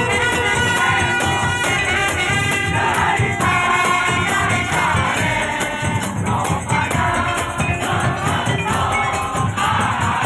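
Music with voices singing over shaken percussion.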